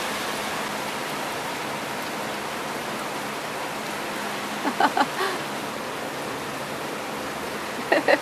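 Heavy rain pouring down in a steady downpour. A voice is heard briefly about five seconds in and again near the end.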